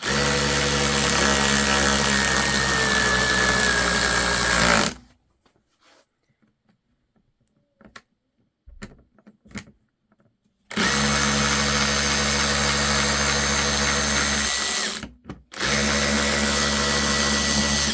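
Snap-on 14.4V 3/8-inch high-torque cordless ratchet running in three bursts of about five, four and three seconds, a steady electric motor whine, with a few small clicks in the quiet gap between the first and second bursts.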